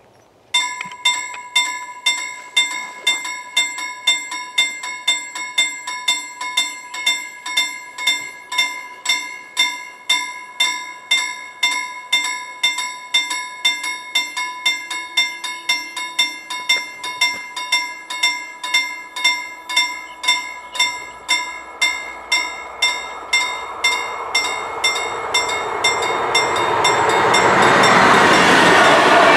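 Level-crossing warning bell starts suddenly about half a second in and rings in quick, even strokes throughout. From about two-thirds of the way through, the noise of an approaching passenger train swells and is loudest near the end, covering the bell.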